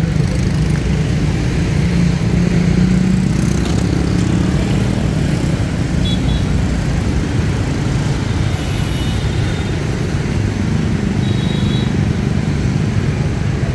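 Steady city street traffic, the engines of passing motor vehicles making a continuous low rumble and hum, with a few short high-pitched tones partway through.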